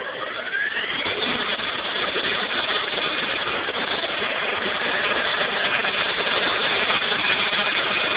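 Abbott & Ashby 8-inch bench grinder, with a linisher belt arm, spinning up with a rising whine over the first second after being switched on, then running at full speed with a loud, steady noise.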